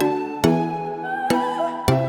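Background music: sustained instrumental notes struck on a steady beat, about two a second.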